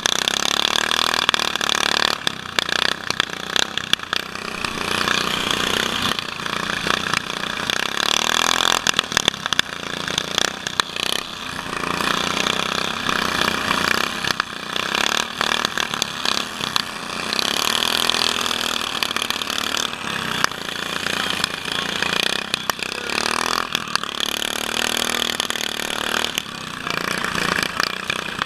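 Riding lawn mower engines running and revving up and down, heard from a helmet camera on one of the racing mowers, with frequent knocks and rattles from the bumpy ride over dirt.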